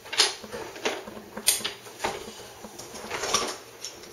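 Toy trains and track pieces clacking and knocking together as a child handles them: a few scattered sharp clicks, the loudest about a second and a half in and a small cluster near three seconds.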